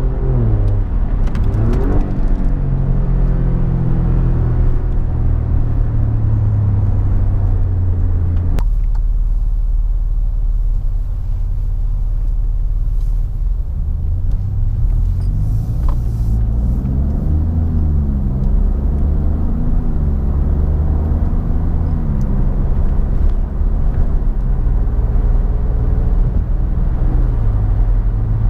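Alfa Romeo Giulia Quadrifoglio's twin-turbo V6 heard from inside the cabin while driving, with a steady engine drone. About a third of the way in the sound cuts abruptly from the stock exhaust to the car fitted with an X-pipe. Further on the engine pitch climbs as the car accelerates, then holds, wavering.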